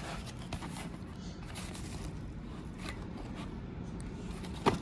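Faint handling noise of a fabric tool pouch holding a brush set being pulled from a tool box drawer and unfolded, with a few soft clicks and a sharper tap near the end, over a low steady hum.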